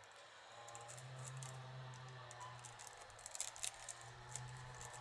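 Soaked wicker rods clicking and crackling faintly as they are pushed and bent through the weave of a basket, with a cluster of sharper crackles about three and a half seconds in.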